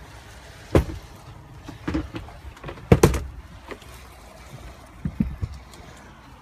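A few irregular knocks and thumps inside a campervan's body, the loudest about three seconds in, over a low steady rumble.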